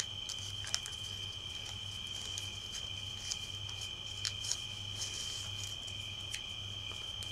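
A dollar bill being handled and folded, giving scattered faint paper crinkles and ticks, over a steady high-pitched whine and a low hum.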